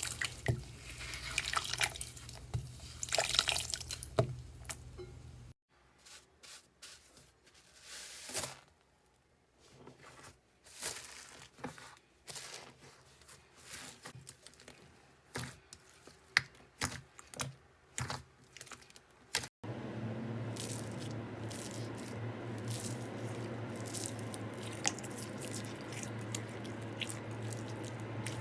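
Slime being squeezed and pressed by hands: a run of small wet clicks and pops, dense at first, sparse and quieter in the middle, then over a steady low hum near the end.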